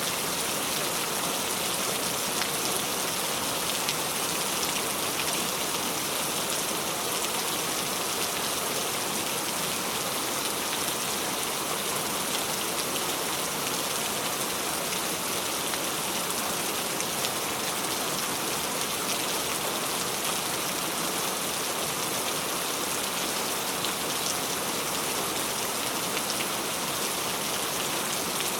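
Steady rain falling, a continuous even hiss of many raindrops hitting a surface, with fine individual drop patters in the mix.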